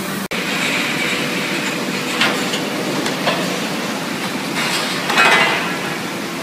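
Abbey Etna tube mill running: steady mechanical noise with a few louder knocks.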